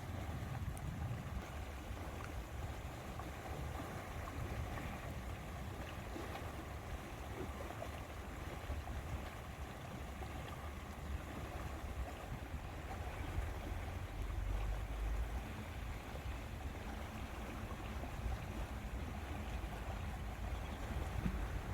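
Lake water lapping steadily over a low rumble, the rumble swelling a little around the middle.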